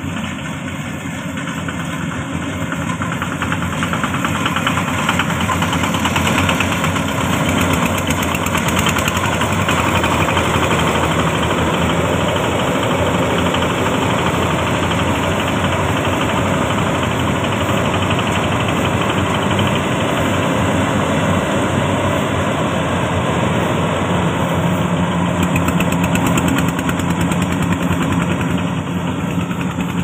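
Yanmar YH700 rice combine harvester's diesel engine and machinery running steadily under load as it cuts rice, growing louder over the first few seconds as it comes close.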